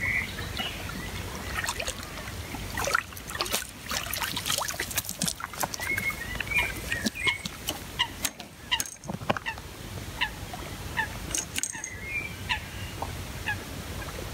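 Short bird calls now and then, over a steady low rumble, with many scattered sharp clicks and knocks.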